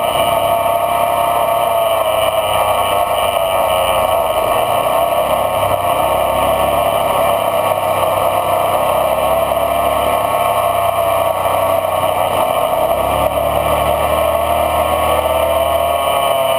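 Off-road vehicle engine running steadily under way, its pitch rising and falling slightly as the vehicle drives along a sandy dirt trail.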